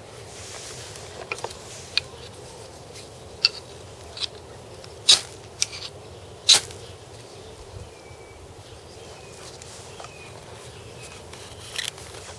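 Handling noises of a knife, a small sharpening stone and a leather sheath: scattered sharp clicks and taps, the two loudest near the middle, as the stone is fitted into the sheath.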